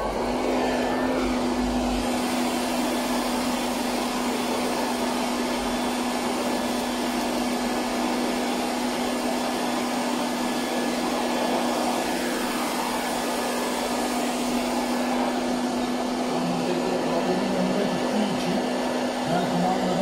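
Silvercrest robot vacuum cleaner running, its suction motor giving a steady, even hum with one constant low tone.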